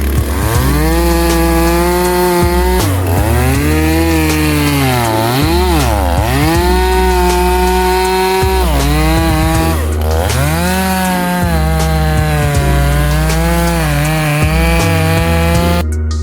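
Two-stroke chainsaw cutting wood, its engine pitch repeatedly sagging under load in the cut and climbing back as it revs up again.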